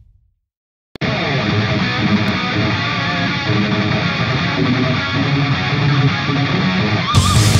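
About a second of silence, then guitar-driven rock background music, with a brief wash of noise joining it near the end.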